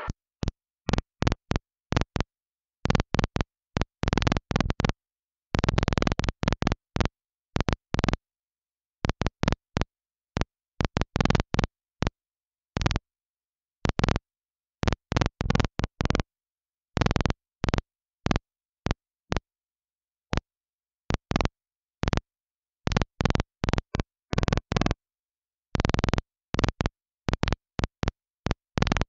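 Static on an air-band radio scanner feed, cutting in and out in many short, irregular bursts with dead silence between them, as the squelch opens and closes with no one transmitting.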